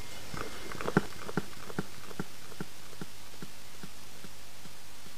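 Knocks from a microphone being handled on its stand, the loudest about a second in, followed by a string of evenly spaced repeats, about two and a half a second, that fade away over the next few seconds.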